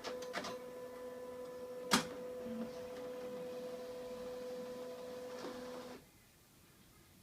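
HP scanner's automatic document feeder running with a steady, pitched mechanical whine. A few clicks come at the start, a sharp loud click about two seconds in, and the mechanism stops abruptly near the end. This is the loud noise the owner gets when scanning through the ADF.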